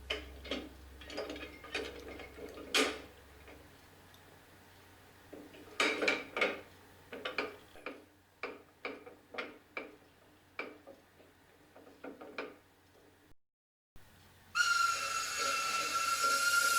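A run of irregular sharp clicks and knocks, some in quick clusters, like station bustle. Near the end a steam locomotive starts letting off steam: a loud steady hiss with a held whistling tone in it.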